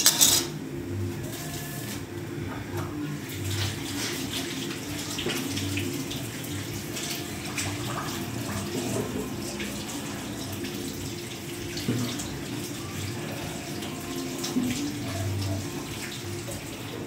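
Kitchen tap running into a sink as vegetables are rinsed under it, with occasional small knocks.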